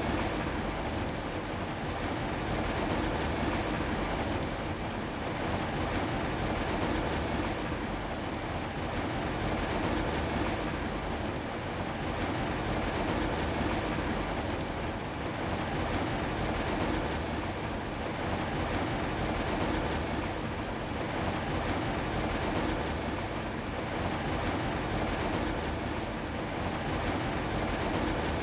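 Steady rain, a dense even hiss and patter with a low rumble beneath, swelling gently and never breaking.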